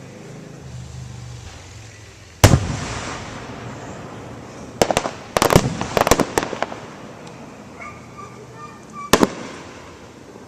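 Fireworks shells bursting overhead: a loud bang about two seconds in with a long rolling echo, a quick string of sharp cracks around five to seven seconds, and another bang near the end.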